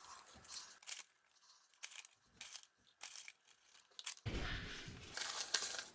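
Handling sounds from food preparation: scattered light clicks and rustles, then about four seconds in a louder crackling, crunching rustle that lasts under two seconds.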